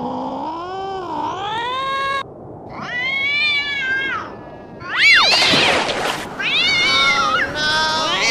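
A cat meowing in a string of about five long, drawn-out yowls whose pitch bends up and down; the loudest is a sharp, high call about five seconds in.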